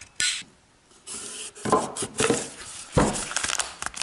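Handling noise: the stove parts and packaging being moved and rummaged through, with a brief rustle near the start and then a run of knocks, clatter and rustling from about a second in.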